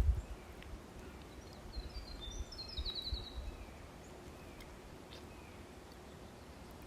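A songbird sings once, about two seconds in: a short phrase of high notes that ends in a quick trill. A low thump comes right at the start, and a soft low rumble runs underneath.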